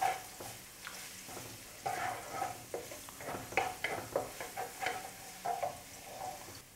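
Crushed garlic sizzling lightly in hot oil in a wok, stirred with a wooden spatula that scrapes across the pan in a string of irregular strokes.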